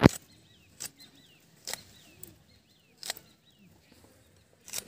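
Crisp snaps of a green chilli being cut against a hand-held curved iron blade, five strokes about a second apart with the loudest first. Small birds chirp faintly in between.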